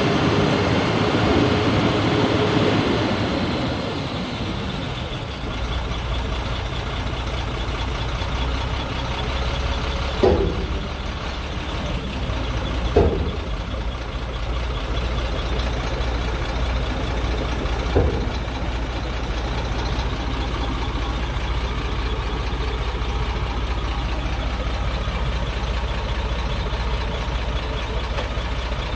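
Shacman 8x4 dump truck's diesel engine running, its revs falling off about four seconds in and then idling steadily. Three sharp clunks come from the truck during the idle, about ten, thirteen and eighteen seconds in.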